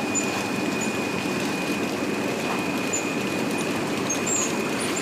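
Passion fruit processing machinery running steadily, a continuous mechanical din with a constant high-pitched whine.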